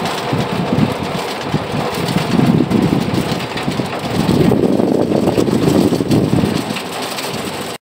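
Rumbling wind and running noise of an open river cable car in motion, with uneven low surges throughout; it cuts off abruptly at the end.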